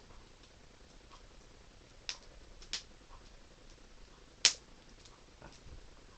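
Scissors snipping a hard plastic case: a few sharp, separate clicks, the loudest one about four and a half seconds in.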